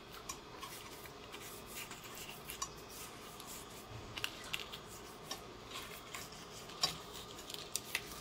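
Fingers rubbing coarse salt over raw, skewered prawns on a hard plate: faint scraping with scattered small clicks and taps as shells and skewers knock the plate.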